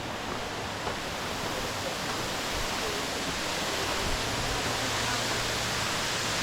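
Waterfall: the steady rush of falling water, an even hiss that does not let up.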